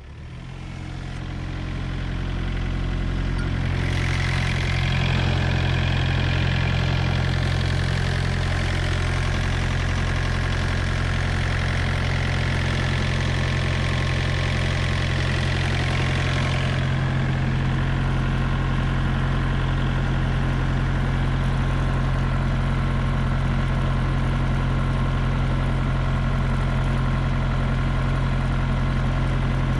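Diesel engine idling steadily, fading in over the first few seconds, with an added hiss over the middle part.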